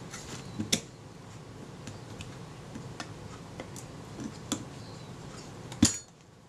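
Scattered light metallic clicks and taps from a small spanner and the parts of a Kodak Retina II camera's top-plate mechanism being handled as the tool is fitted onto the film take-up shaft, with a sharper click near the end.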